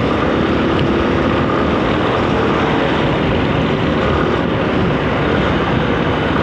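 Yamaha Ténéré 250's single-cylinder engine running steadily as the motorcycle rides through city traffic, heard from the rider's position under a dense rush of wind and road noise.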